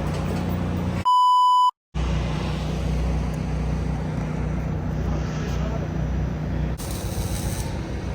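A loud, steady one-pitch censor bleep lasting about half a second, about a second in, followed by a brief dropout. A steady low drone of a car running fills the rest.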